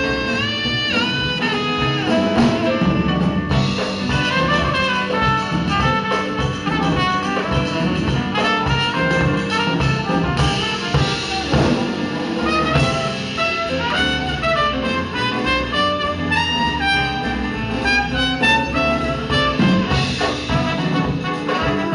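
Jazz quintet playing live: trumpet and tenor saxophone melody lines over piano, bass and drums.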